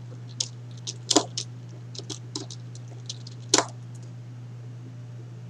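Scattered small clicks and taps of hands pushing a wire into a screw terminal block, two sharper clicks at about one second and three and a half seconds in. A steady low hum runs underneath.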